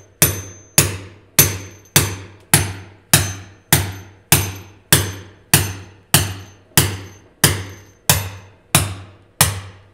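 Small sledgehammer striking the top of a steel wedge anchor set in a hole drilled in a concrete floor, driving it down until the nut sits on the washer. A steady run of about seventeen sharp metal-on-metal blows, a little under two a second, each ringing briefly.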